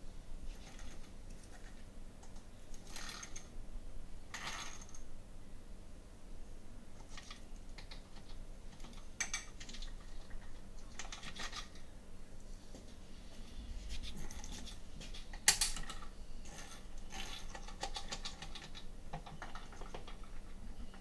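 Hand socket ratchet clicking in short rapid bursts while intake manifold bolts are turned loose. There is one sharp metallic knock about two-thirds of the way through.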